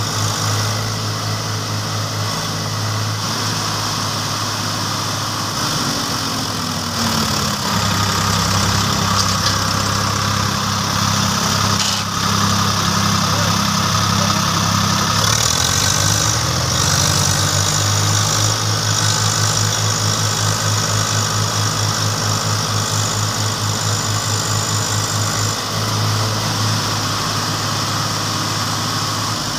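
Diesel engines of two Swaraj 744 FE tractors running under heavy load together, towing a loaded trolley stuck in deep mud. The engine note drops about seven seconds in and rises again around sixteen seconds.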